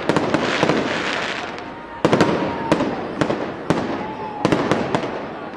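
Aerial fireworks bursting overhead: a string of sharp bangs in quick clusters, with crackling between them and a loud fresh volley about two seconds in.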